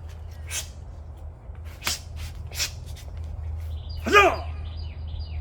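A martial artist's sharp, forceful exhalations as the technique is performed, then one short loud shout about four seconds in, the kiai with the strike. Birds chirp faintly in the background.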